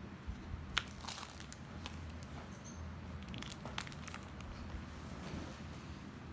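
Pokémon trading cards being handled and laid down on a playmat: soft rustling and sliding with a few sharp card clicks and taps.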